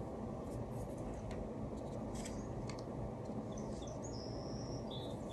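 Low steady background noise with faint scratching and a few light clicks.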